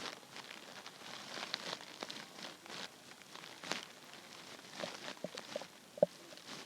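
Hungry human stomach gurgling: faint crackly, bubbly pops with a few short squeaky gurgles near the end, the loudest one about six seconds in.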